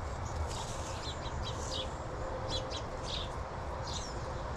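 Small birds chirping, with short high chirps coming every second or so over a low steady rumble.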